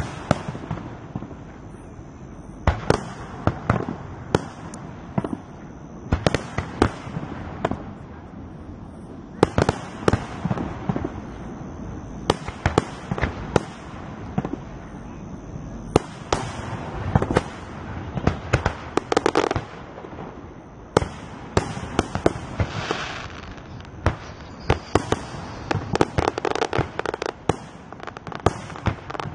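Aerial fireworks display: firework shells bursting one after another, a run of sharp bangs, often several in quick succession.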